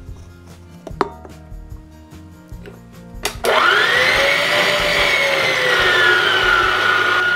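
Electric mixer switched on about halfway through, its motor whining loudly as it beats the cake batter. The pitch rises quickly, then slowly sinks and settles under the load of the thick batter. Before it starts there are only a few soft clicks.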